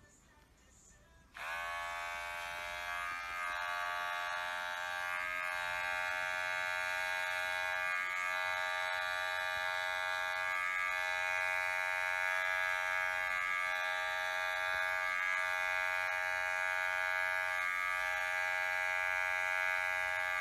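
Handheld electric pet clipper switched on about a second and a half in; its motor spins up and then runs with a steady buzz while it trims the fur on a cat's paw.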